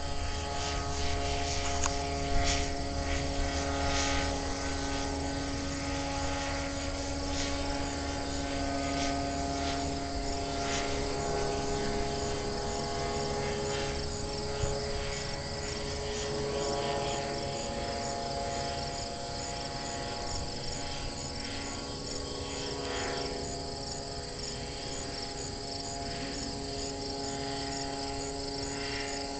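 Powered hang glider's engine droning steadily high overhead, its pitch wavering slightly and the sound easing off in the second half as it moves away. Insects chirp steadily at a high pitch.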